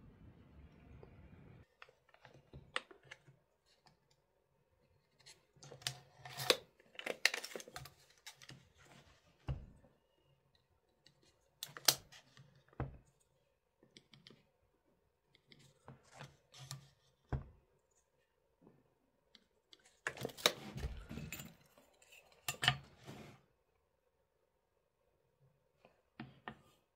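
Irregular sharp clicks, taps and knocks of wooden pieces and hand tools being handled at a workbench, coming in short clusters separated by quiet pauses.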